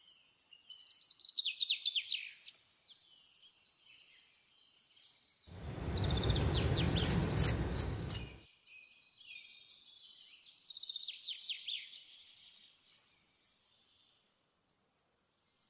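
Crisp, deep-fried breaded chicken nuggets crunching loudly for about three seconds in the middle. Birds sing in the background, with rapid trills that come and go.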